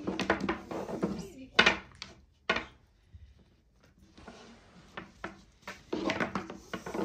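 Long thin wooden rolling pin rolling dough out on a wooden tabletop, with sharp knocks of the pin on the table, the loudest about a second and a half in and again a second later.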